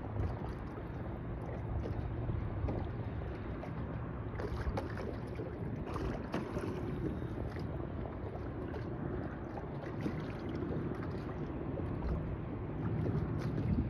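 Steady low rumble of wind and water on open water, with a few faint splashes of small waves against a boat.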